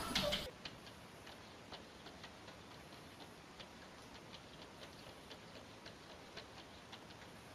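Faint light taps, about two or three a second and not quite evenly spaced, of a cat's paws and claws batting against a glass door pane. A louder sound from before cuts off about half a second in.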